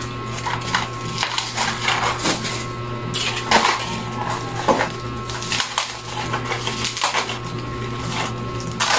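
Plastic and cardboard packaging handled and opened by hand: irregular crinkling and rustling with sharper crackles now and then.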